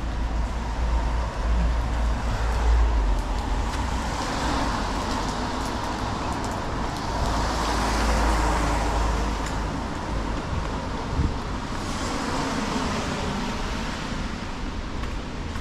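Road traffic on a rain-wet city street: cars passing with tyre hiss that swells and fades twice, over a steady low rumble.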